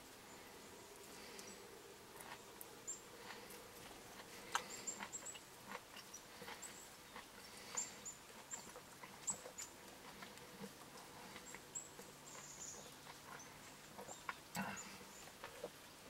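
Downy woodpecker pecking at a birch-log feeder: faint, irregular taps, with scattered short high chirps.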